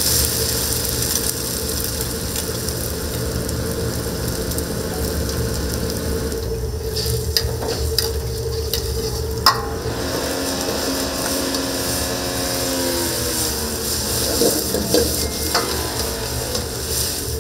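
Fried rice sizzling in a hot wok as it is stir-fried, over a steady hum. A few sharp metallic clanks of the utensil against the wok come about seven to ten seconds in.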